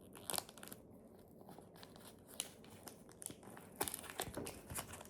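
Panini sticker packet being torn open and its wrapper crinkled: faint, scattered crackles and rustles, busiest near the end.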